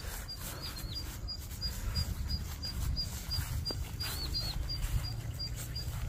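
A small animal chirping: a steady run of short, high-pitched chirps, about three a second, some with a little warbling twist, over a low background rumble.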